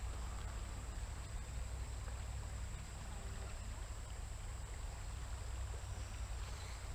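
Faint, steady outdoor ambience at a river's edge: a low rumble under a thin, steady high hum, with no distinct events.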